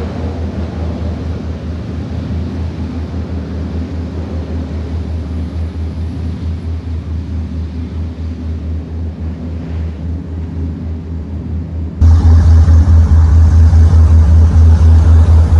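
The 1,000 hp 35 Fountain performance boat's big-block inboard engines running under way, a steady low pulsing exhaust rumble with water and wind noise. It jumps much louder about twelve seconds in.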